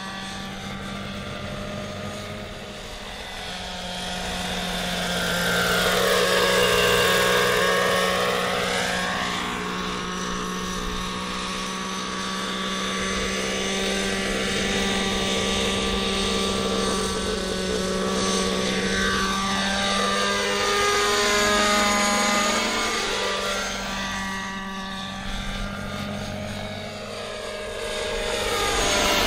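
Radio-controlled model helicopter flying, its engine and rotor whine running steadily. The pitch rises and falls in sweeps as it passes close by, loudest about six to eight seconds in and again around twenty-two seconds.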